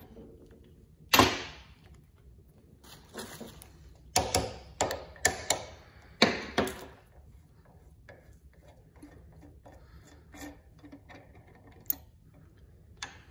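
Ratchet and socket clacking against a 6.0 Powerstroke oil rail held in a steel vise. There is one loud sharp knock about a second in and a cluster of about seven sharp clacks between three and seven seconds. Faint light ticks follow as the socket is worked onto the next cap by hand.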